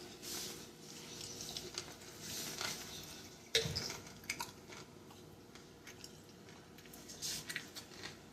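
A person chewing food, with a sudden knock about three and a half seconds in.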